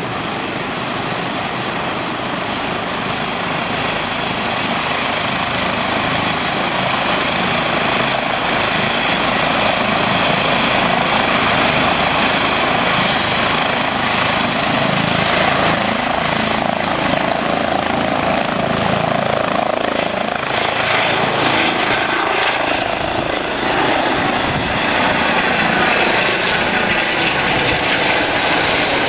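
Eurocopter EC135 air-rescue helicopter running at high power: turbine whine over the beating rush of the main rotor, growing louder over the first several seconds as it lifts off, then heard passing overhead.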